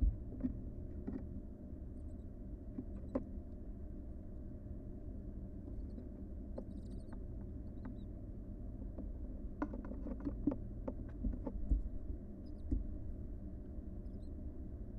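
Barn owl nestlings shuffling in a nest box: scattered soft taps and scuffs, most bunched about ten to twelve seconds in, over the steady low hum of the nest-box camera microphone.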